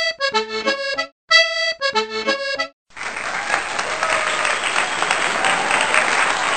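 A short intro music jingle played in two phrases. From about three seconds in, a steady hiss of kitchen noise takes over.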